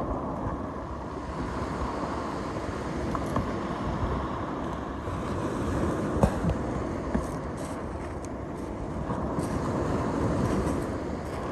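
Wind buffeting the microphone over the wash of surf on a shingle beach, with a few light clicks and knocks from hands working the kayak's plastic fittings, one sharper knock about six seconds in.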